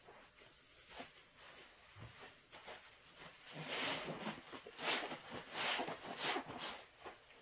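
Rubber-gloved hands scooping and squeezing thick cleaner suds in a plastic tub: soft foam squishing, faint at first, then about five louder squishes roughly every three-quarters of a second in the second half.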